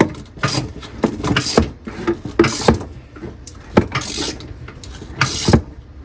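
Irregular clicking and scraping of a wrench tightening the mounting nuts of a new bathroom faucet, snugging them down so the faucet no longer moves.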